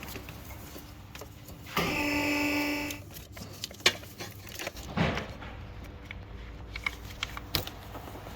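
A cordless power tool's motor whines steadily for about a second, undoing a fastener. Sharp metallic clicks and knocks of tools and parts follow.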